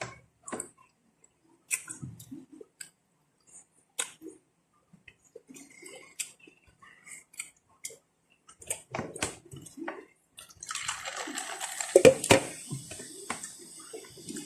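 Close-up eating sounds: scattered small clicks and soft mouth noises. About eleven seconds in, these give way to a steady rush of running or pouring water lasting several seconds, with a few knocks in it.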